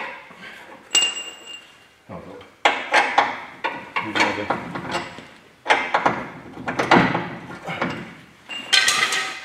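Steel knocks and clinks as a bolt is worked through a truck's front leaf-spring hanger. There are runs of quick knocks, and short ringing metal clinks about a second in and again near the end.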